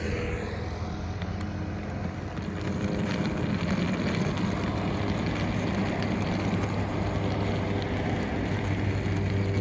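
Road traffic: a steady noise of vehicles driving along the road, with a low engine hum, getting a little louder about three seconds in.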